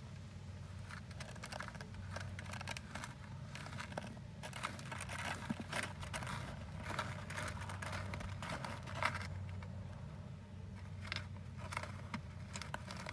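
A mole burrowing into loose soil in a bucket: irregular scratching and crackling of dirt and grit, over a low steady hum.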